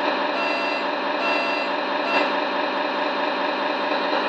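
Electronic sound unit of a Tamiya Scania T wrecker model playing a truck reversing beeper, about one beep a second, over a steady simulated truck engine; the beeps stop about two seconds in and the engine sound runs on.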